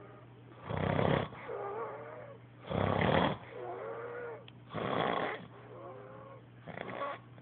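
A sleeping man snoring loudly: four rasping snores at a steady pace, about two seconds apart, with fainter wavering sounds between them.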